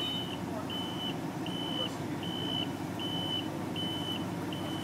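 A gas-powered forklift's reversing alarm beeps steadily on one high note, about four beeps every three seconds, over the low hum of its running engine.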